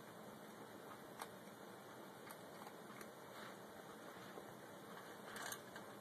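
Near silence: faint room hiss with a few soft, brief clicks, the loudest near the end.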